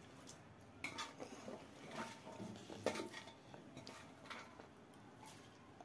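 Faint, scattered clinks of steel dishes and a cooking pot as chopped potatoes, capsicum and herbs are tipped in by hand, mostly in the first three seconds.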